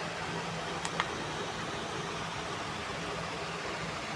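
Steady background hiss with a faint low hum, and two faint clicks about a second in.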